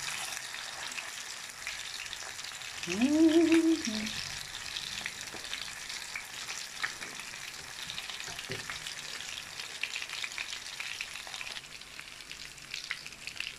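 Fish cakes sizzling and crackling as they shallow-fry in hot oil in a frying pan, with a few light taps of a metal fork in the pan. About three seconds in, a short hummed vocal sound.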